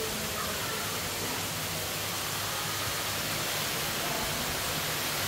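Steady rush of water from an artificial waterfall pouring into a pool, growing a little louder toward the end.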